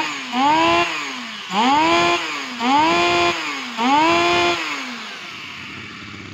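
Robin brush-cutter petrol engine revved in repeated throttle blips, about one a second, each rising in pitch, holding briefly and falling back. About five seconds in the blips stop and it settles to a low, steady idle.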